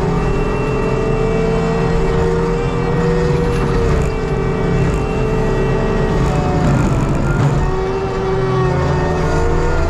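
ASV RT120 compact track loader with a Fecon forestry mulching head running steadily, a loud diesel engine and hydraulic whine. The pitch sags about seven seconds in and comes back up.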